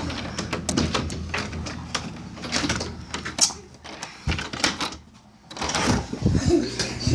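Handling noise from the recording phone as it is moved about: scattered clicks, knocks and rustling, with a short quiet gap about five seconds in.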